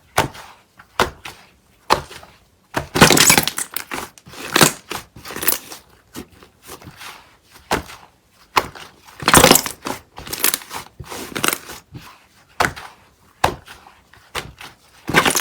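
White slime being squeezed and poked by hand, giving irregular crackling pops and clicks. Longer crackly squishes come about three seconds in and again around nine to eleven seconds.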